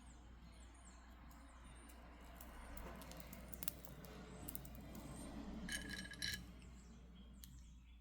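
Crystal beads clinking lightly against each other as they are handled and threaded onto a bracelet: a few faint, scattered clicks, with a short cluster of brighter clinks about six seconds in.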